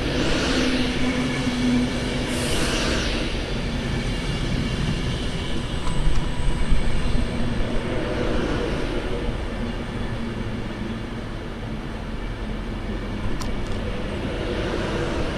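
A train running on the line through a station: continuous rumble and rail noise with a steady low hum, louder for a moment about six seconds in.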